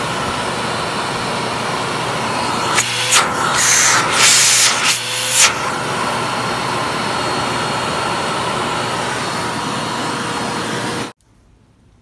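Samsung Cyclomax canister vacuum cleaner running steadily with its repaired hose, with a constant motor and airflow rush. A few seconds in it surges louder in several rushing bursts, then settles. The sound cuts off abruptly near the end.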